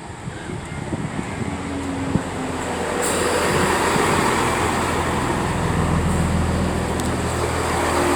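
Class 166 diesel multiple unit approaching, its engine and running noise growing steadily louder, with a sharp click about three seconds in and another near the end.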